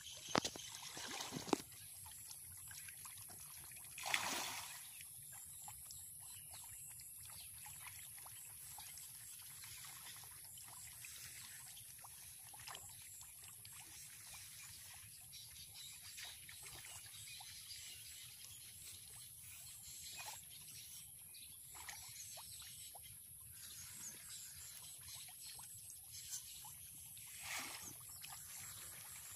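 Faint pond water trickling and lapping, with many small clicks and a brief louder noise about four seconds in.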